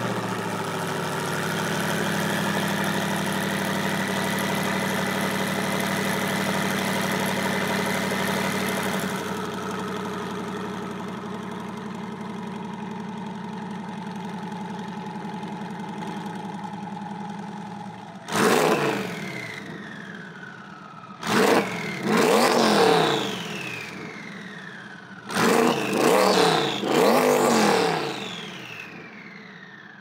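Twin-turbocharged C8 Corvette V8 idling fast just after start-up, the idle dropping lower about nine seconds in. From about eighteen seconds in it is blipped through a series of quick revs in three groups, each one falling back to idle.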